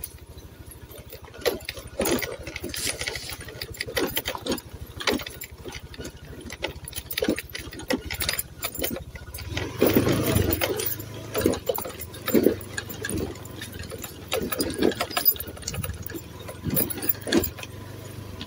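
A vehicle engine running steadily on a rough unpaved road, with frequent knocks and rattles as it jolts over the ruts.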